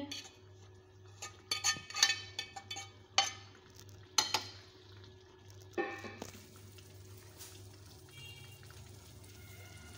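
Spatula and metal dish clinking and scraping against a metal cooking pan as scrambled egg is scraped in and stirred into thick dal, a string of sharp knocks over the first six seconds. After that comes a faint, steady sizzle from the pan.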